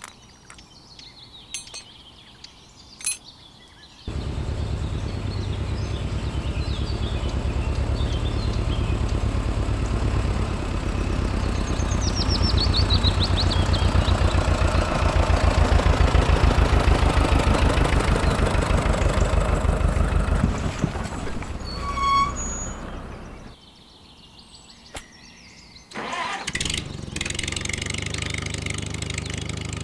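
A small engine starts suddenly about four seconds in and runs with a rapid, steady low pulsing. It dies away about two-thirds of the way through, then starts again near the end.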